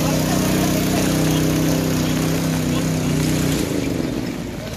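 An engine running steadily close by, its hum dropping away for about a second near the end, over the constant hiss of heavy rain on floodwater.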